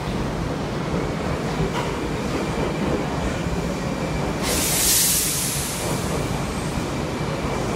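Odakyu 7000 series LSE Romancecar pulling out past the platform, its wheels and running gear giving a steady rumble as it gathers speed. A burst of hiss cuts in about four and a half seconds in and fades over a second or so.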